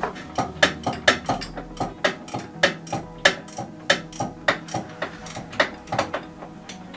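Sharp metallic clicks and knocks, about three a second and uneven in loudness, from hand-tool work on the underside of a VW T4 Syncro.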